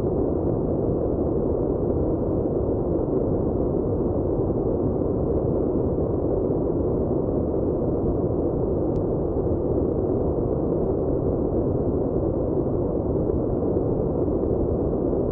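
Steady, dull rumbling noise with no tone, beat or voice in it, even in loudness throughout.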